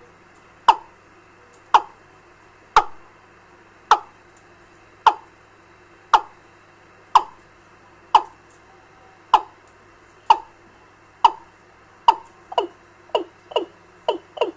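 Recorded fowl lure call played through a bird-trapping amplifier and its loudspeaker: short, sharp, falling chirps about once a second, speeding up to about two a second near the end, over a faint steady electrical hum.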